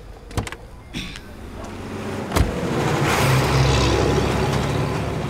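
A lorry passing close by on the road, its engine hum and road noise swelling and then fading. Before it come two light clicks and a sharp knock.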